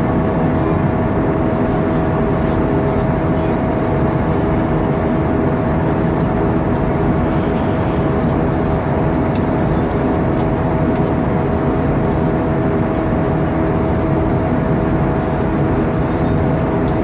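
Steady airliner cabin noise inside an Airbus A320-232 in flight: a constant rush of engine and airflow noise with a steady mid-pitched whine running through it.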